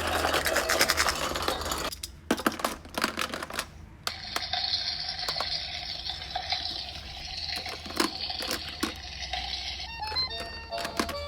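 Toy hot pot cooking set's electronic cooking sound effect, a steady hiss with scattered clicks of small plastic pieces. Music starts near the end.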